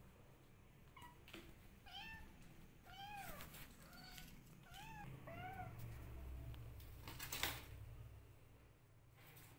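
A kitten mewing: about six short, high mews, each rising then falling in pitch, roughly one a second. A brief sharp noise near the end is the loudest sound.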